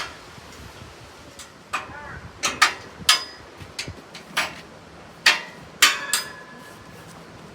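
A series of about nine sharp, irregular knocks and clanks, some ringing briefly like struck metal.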